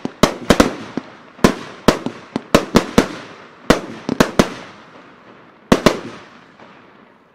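Blackboxx El Coolio firework battery firing its last shots: about fifteen sharp bangs in quick twos and threes as the shells burst into stars, each trailing off in echo. The last pair comes about six seconds in and the sound then dies away as the battery finishes.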